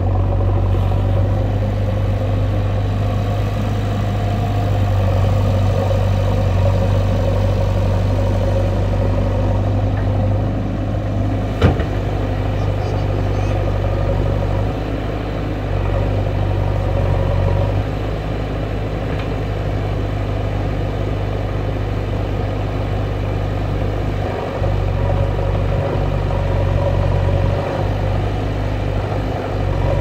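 JCB backhoe loader's diesel engine running steadily as the machine works, with a single sharp knock about twelve seconds in.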